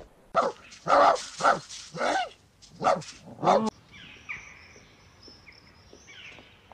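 A dog barking six times in quick succession, about half a second apart, stopping suddenly. After that, birds chirping faintly.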